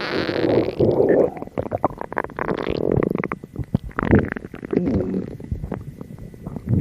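Hungry stomach grumbling: irregular low gurgling rumbles broken by many short squelchy pops and squeaks.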